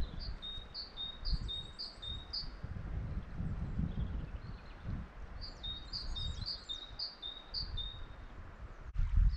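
A small songbird singing a quick phrase of the same two high notes repeated about twice a second, in two runs: one at the start and another from about halfway. Under it runs an uneven low rumble.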